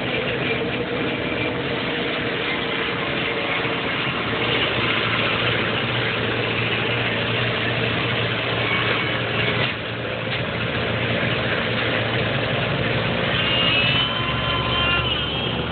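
Highway traffic noise: trucks' engines and tyres running steadily on the road. A few thin high tones sound near the end.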